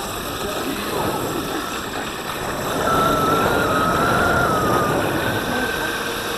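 Electric mountainboard rolling over asphalt on its pneumatic tyres: a steady rush of tyre and wind noise, with a thin electric-motor whine that wavers in pitch for a couple of seconds in the middle as the sound grows louder.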